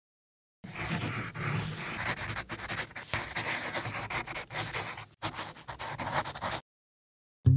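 Scratchy pen-on-paper writing sound in quick, irregular strokes with brief pauses between them, lasting about six seconds. It is a handwriting sound effect.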